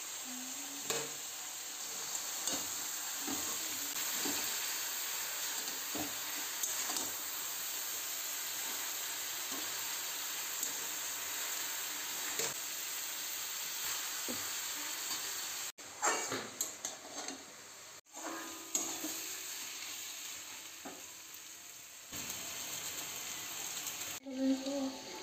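Vegetables sizzling in hot oil in a wok as they are stir-fried, with a metal spoon clicking and scraping against the pan from time to time. The sizzle drops out briefly twice past the middle.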